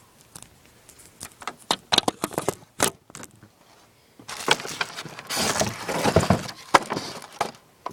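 Handling noise: a string of sharp clicks and knocks, then a few seconds of rustling and scraping with more knocks, as items from the airsoft gun's box are moved about.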